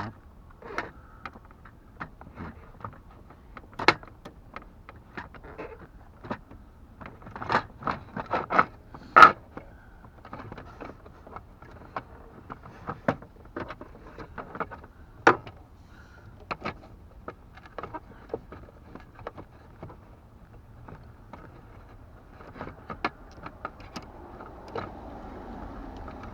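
Plastic dashboard trim on a Jeep Cherokee XJ being pried and worked free of its retaining clips: irregular clicks, taps and scrapes, the loudest a few sharp snaps about eight to nine seconds in.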